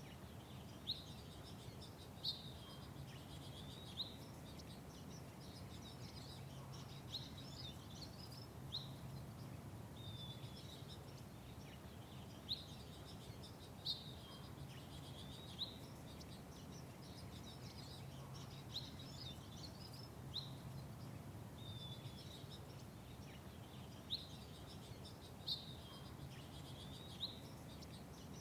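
Small birds chirping, short sharp chirps repeated every second or two, over a low steady background hum.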